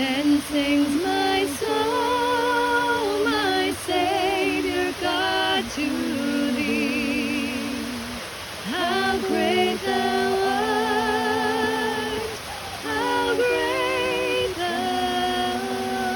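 A woman singing unaccompanied in long, held phrases with vibrato, over the steady rush of a waterfall.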